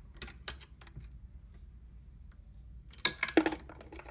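Progressive reloading press being worked: a few light clicks as the handle strokes, then a cluster of sharp metallic clicks and clinks about three seconds in as the shell plate and a .223 brass case are handled by hand.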